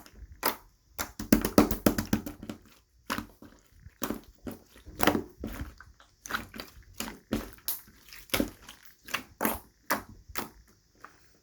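Hands squishing and pressing slime, making short wet pops and clicks: a quick flurry of them about a second in, then scattered single pops.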